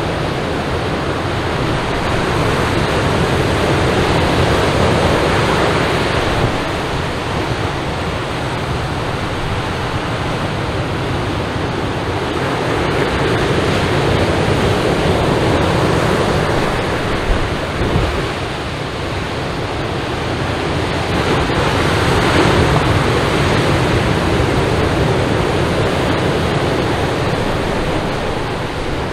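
Ocean surf breaking and washing up a sandy beach: a steady wash that swells and eases every several seconds, over a low rumble.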